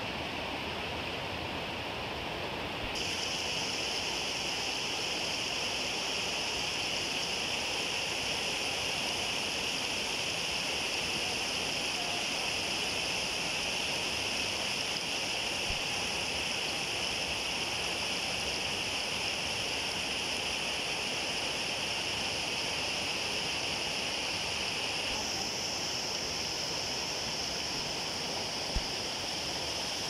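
Spring-fed stream rushing over rocks from a cave pool, a steady hiss of running water that grows a little louder about three seconds in.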